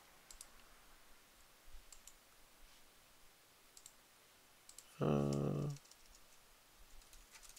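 Scattered faint clicks of a computer keyboard and mouse as a text field is edited, with a short hummed 'mm' from a man's voice about five seconds in.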